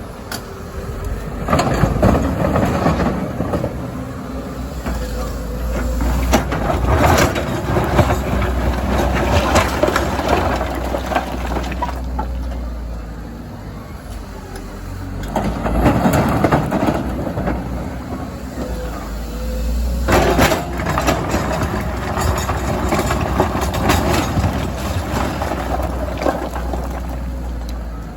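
Komatsu hybrid excavator running under load as it digs and loads rock: a steady engine hum, with three long stretches of rock scraping and clattering, full of sharp knocks.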